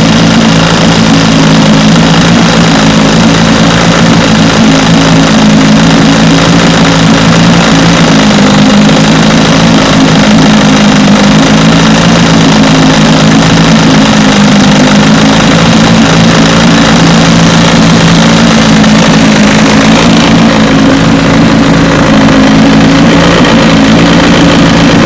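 A 1973 Johnson 25 hp two-cylinder two-stroke outboard running at idle in a test barrel, loud and steady. The spark on its bottom cylinder is cutting in and out, which the owner suspects comes from the breaker points.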